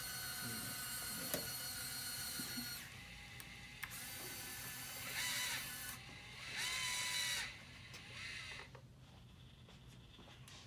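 Small electric gear motors on a tracked hobby robot whining as its pulley-driven crane arm hoists a bucket. A steady whine with a single sharp click gives way to two short motor runs, each rising in pitch as it starts and dropping as it stops.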